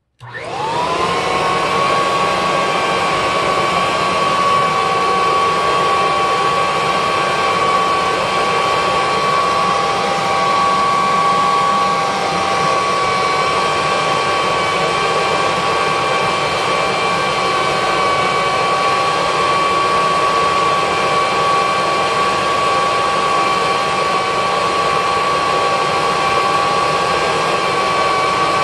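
Kirby Heritage II Legend upright vacuum switched on: its motor spins up with a quickly rising whine, then runs steady and loud with a high whine over the rush of air.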